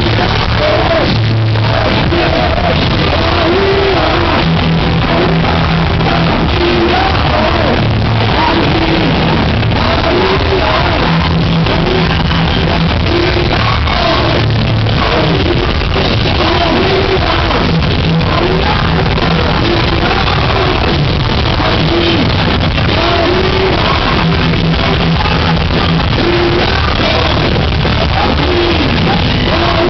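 Live heavy metal band playing a rock anthem, with a repeating sung melody over steady bass and drums.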